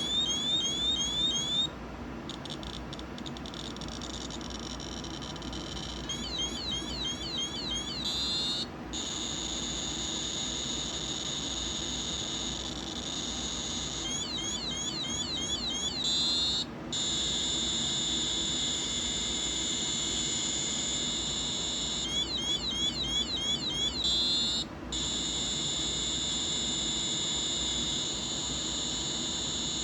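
Electronic radiation detector sounding off at a high count rate from a smoke detector's americium-241 source. Stretches of fast, chirping clicks alternate with a steady high-pitched alarm tone lasting several seconds, and the cycle repeats about every eight seconds.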